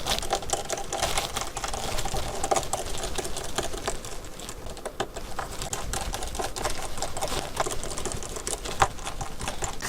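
Screwdriver undoing the small screws that hold the phone's battery cover, a dense run of small rapid clicks and ticks.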